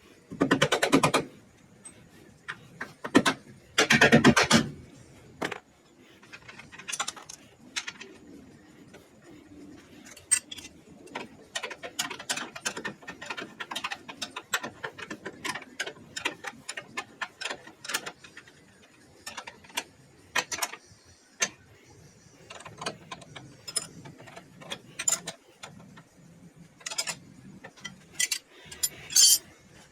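Tools and metal car parts being handled during assembly: many small clicks, clinks and knocks, with two short, loud rattling bursts about a second in and about four seconds in.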